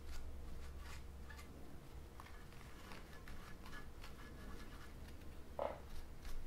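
Faint rubbing of a paper towel scrubbing over the chips of a bare graphics card circuit board, a series of soft light strokes over a low steady hum.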